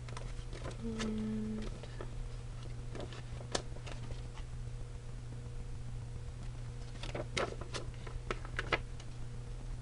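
Scattered light clicks and taps of small letter stickers and paper being handled on a scrapbook page, with a cluster of clicks near the end. A steady low electrical hum runs underneath, and a brief low tone sounds about a second in.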